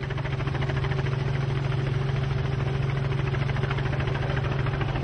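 Light helicopter in flight, heard from inside the cabin: a steady low drone with a fast, even rotor beat.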